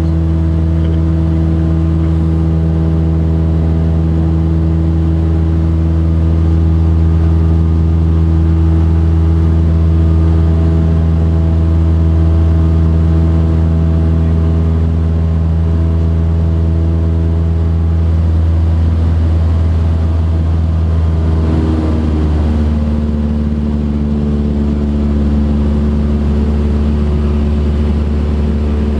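Single-engine high-wing light aircraft's piston engine and propeller droning steadily in flight. About 21 seconds in, the drone's tone changes and it gets slightly quieter.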